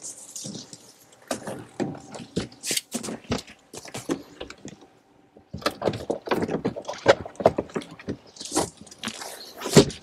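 Folding rear seat of a GMC Sierra EV being handled: scattered clicks, knocks and scrapes of its latches and trim, with a pause of about a second near the middle and busier handling in the second half.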